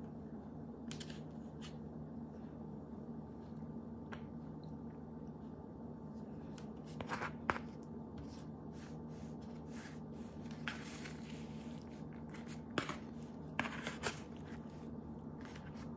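Quiet sounds of a person eating: chewing and handling food with the fingers, with scattered short clicks and scrapes, the loudest about halfway through and again near the end, over a steady low hum.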